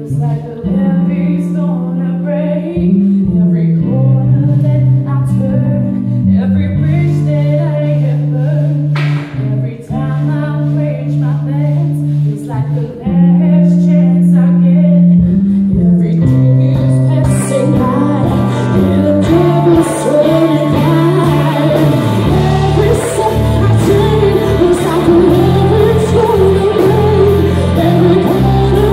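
Live band playing: a woman singing over electric guitars, bass guitar and drums. The music gets louder about thirteen seconds in, and the drums and cymbals come in harder from about seventeen seconds.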